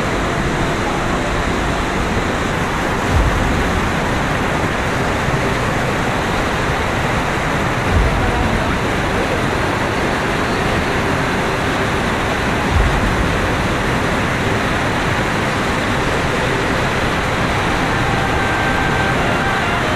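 River water rushing over rocks and down a whitewater chute, a steady loud rushing noise, with three brief low thumps spread through it.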